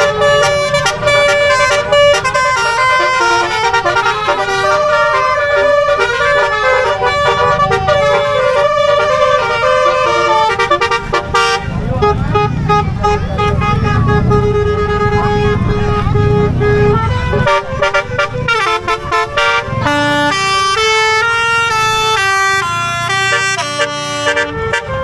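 Bus telolet multi-tone horns playing a melody of loud, stepping horn notes over a low rumble. About halfway through it changes to a long held lower note, then quick stepping notes return near the end.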